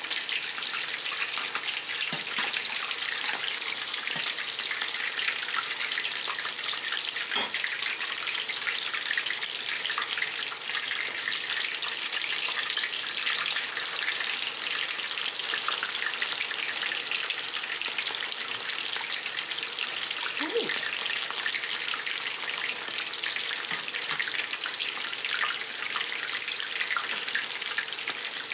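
Chicken fritters frying in hot oil in a stainless steel pan: a steady sizzle and crackle, with a few faint clicks.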